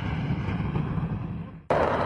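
Military jet engine noise that dies away, then about a second and a half in cuts abruptly to louder, higher-pitched jet engine noise.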